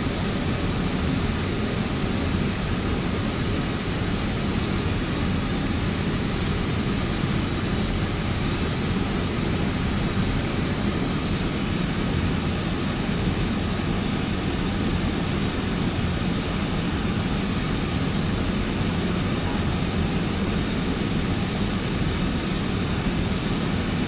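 Steady flight-deck noise of an Airbus A320 on approach, a constant even rush that is strongest in the low range. A brief high hiss about eight and a half seconds in.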